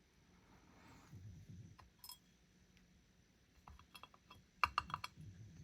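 Small metal lock parts clicking and clinking as a lock is taken apart by hand: a few light ticks, one ringing clink about two seconds in, then a quick run of clinks near the end.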